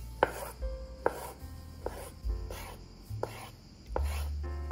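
Chef's knife cutting raw monkfish fillet into chunks on a wooden cutting board: about five sharp knocks of the blade against the board, roughly one a second.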